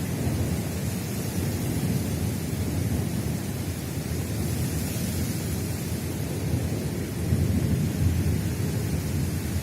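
Distant thunder rumbling low over the steady hiss of a rain shower, with the rumble swelling about three quarters of the way through.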